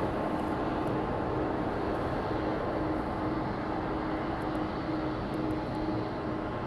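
Jet airliner engines running steadily: a broad rushing noise with a low hum, easing off slightly.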